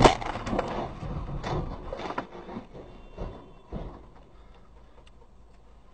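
A sudden loud bang, then a run of clattering knocks and rattles that die away over about two seconds, leaving only a faint background.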